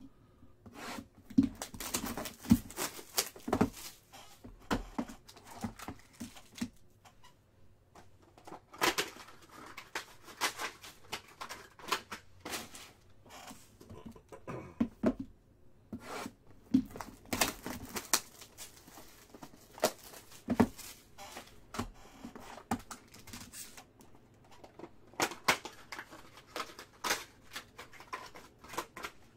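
Hands unsealing and opening a box of trading cards: wrapping and cardboard tearing and crinkling, with scattered clicks and rustles as a foil-wrapped card pack is taken out and handled.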